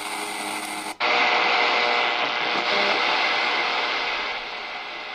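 A TEF6686 receiver's loudspeaker: FM radio audio cuts off abruptly about a second in as the set switches to the longwave band, giving way to loud hiss and static with faint steady whistles, easing off near the end.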